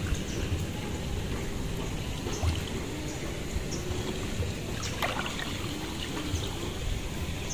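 Shallow muddy water sloshing and trickling as a person wades and stirs through it by hand, with a few small clicks.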